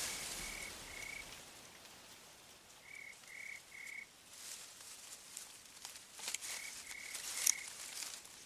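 A small animal calling from the forest: short high notes at one steady pitch, three in quick succession, repeated about every three seconds. Faint rustles and snaps of branches come in between.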